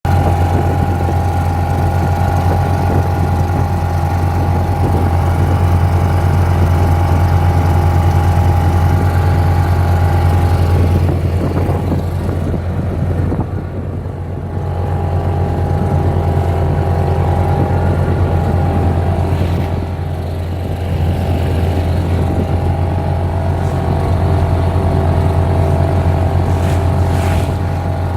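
British Seagull two-stroke outboard motor running steadily under way, with a strong low hum. Its note eases off briefly about halfway through and again a little later.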